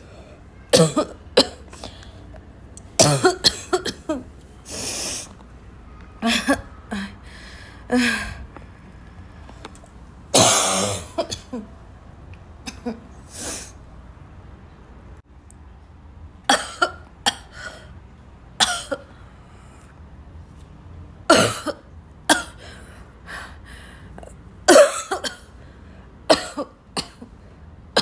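A person in a choking coughing fit: short, harsh coughs come in clusters of one to four every second or two, with one longer, drawn-out burst about ten seconds in.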